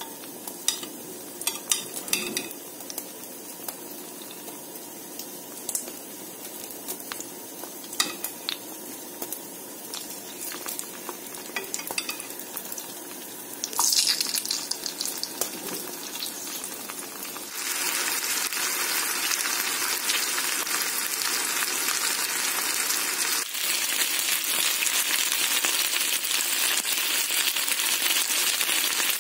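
Raw chicken fillet pieces being laid into hot oil in a frying pan with a metal spoon: a light crackle of oil with scattered clicks of the spoon against the pan. Partway through it jumps suddenly to a loud, steady sizzle as the pan full of browning chicken fries over high heat.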